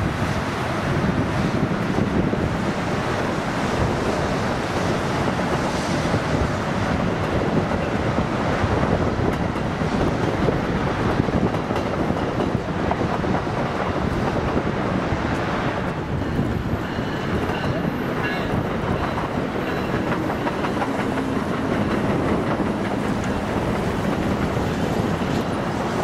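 NJ Transit double-deck passenger train rolling along the tracks, its wheels clicking over the rail joints, with wind on the microphone.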